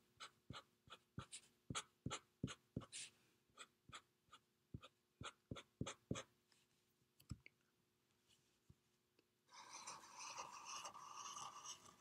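Felt-tip marker drawing on paper: faint, quick short strokes, two or three a second, as feather lines are sketched in. After a short pause, a longer continuous stroke starts near the end.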